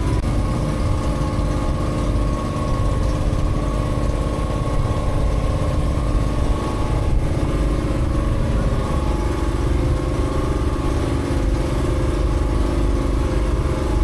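Boat engine running steadily while the boat is under way, a constant drone with a low rumble.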